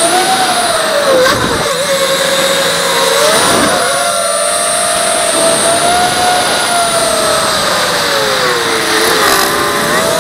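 A ZMR250 racing quadcopter's four Emax 2204 2300kv brushless motors and propellers whine in flight on a 4S battery. The pitch rises and falls with the throttle: it dips briefly twice and sags longer near the end before climbing again.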